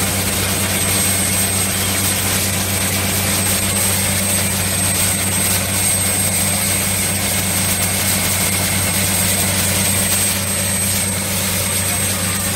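Engine and air compressor of a truck-mounted water well drilling rig running steadily at work, a constant low drone with a hiss over it.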